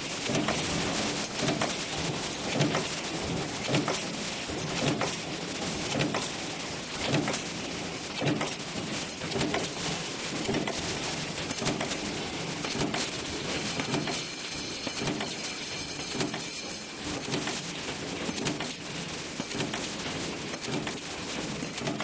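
Mechanical power press stamping cabinet-hinge parts in a progressive die, a metallic clunk about once a second over dense factory noise.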